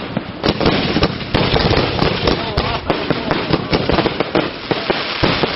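Aerial fireworks display: shells bursting in a dense, unbroken run of sharp overlapping bangs.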